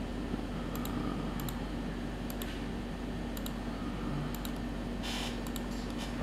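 Scattered light computer mouse clicks, mostly in quick pairs, over a steady low hum, with a short soft rustle about five seconds in.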